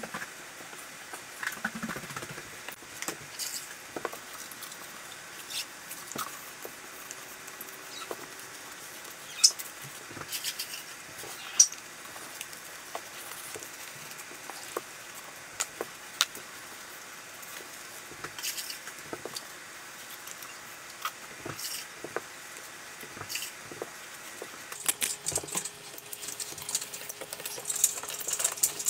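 Scattered light clicks, taps and short scrapes of hand work on a marble tile backsplash, over a faint hiss, with a couple of sharper clicks partway through and busier handling near the end.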